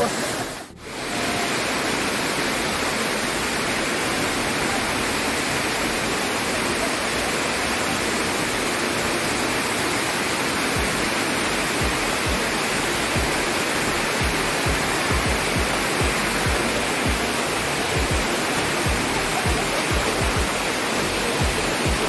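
Waterfall rushing: water pours over the rock cascades in a steady, loud hiss. It dips briefly about a second in, and irregular low thumps come through in the second half.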